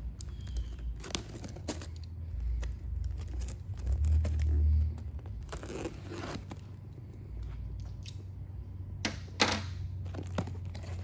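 Packing tape being sliced and peeled off a cardboard shipping box: tearing and crinkling with scattered scrapes and taps on the cardboard, over a steady low hum. The sharpest scrape comes about nine and a half seconds in.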